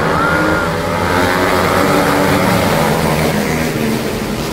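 Several racing motorcycles' engines running hard as they come through a bend and pass close by, loudest about two seconds in.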